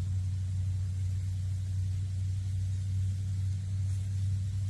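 A steady low hum runs unbroken, with no clicks or knocks over it.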